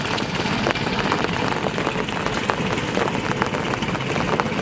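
Rain pattering and water splashing, with many small ticks, over the steady low running of a small engine-driven water pump.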